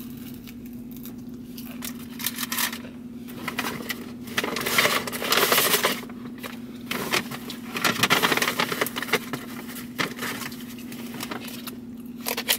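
Rustling, crinkling and scraping of a takeout bag and a lidded plastic food bowl being handled and unpacked, in two bouts of a few seconds each, over a steady low hum.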